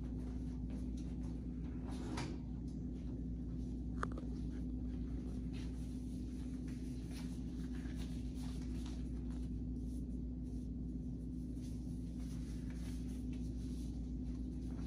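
Steady low room hum, with faint handling rustles and a single light click about four seconds in.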